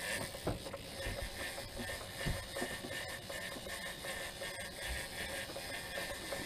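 Big-game trolling reel being wound in under load on a hooked bluefin tuna, its gears whirring and clicking in uneven spurts, over a steady hiss of wind and sea.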